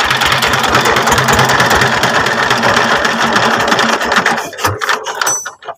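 Single-cylinder S1100-type 16 hp diesel engine, converted to direct injection with a long nozzle, running steadily with even firing pulses. About four seconds in it is shut down: the strokes slow and space out, then stop just before the end.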